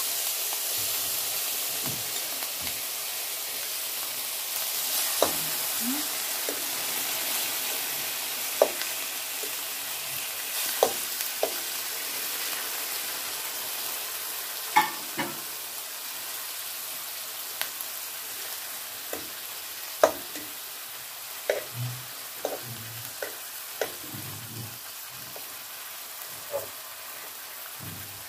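Strips of sirloin steak sizzling in hot oil in a frying pan, the sizzle easing slowly as the pan settles. Scattered sharp clicks and taps of a metal fork against the pan and plate as the pieces are laid out in a single layer.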